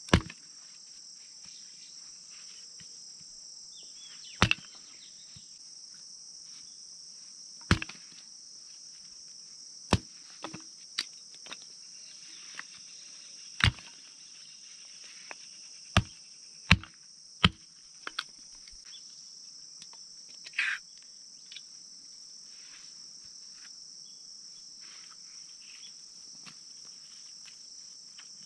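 Hatchet blows splitting short lengths of firewood, a dozen or so sharp knocks at uneven intervals, over a steady high chirring of insects.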